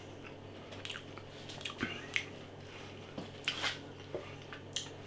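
A person chewing a mouthful of a breaded soya southern fried fillet in a bread bun, with soft mouth clicks and smacks at irregular intervals.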